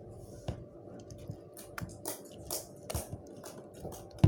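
Slime being squeezed and kneaded by hand, making irregular small wet clicks and pops, with one sharper pop near the end.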